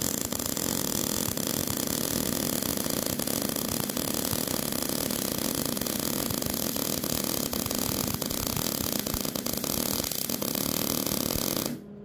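Miller-Matic 185 MIG welding arc laying a long bead with the wire feed speed set too low, a dense crackle with constant spitting and sputtering pops. The sputter is the sign of too little wire for the voltage. The arc cuts off suddenly near the end.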